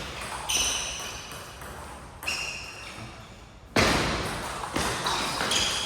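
Table tennis ball knocked back and forth in a rally: about five sharp, ringing clicks of ball on bat and table, roughly a second apart, the loudest about halfway through.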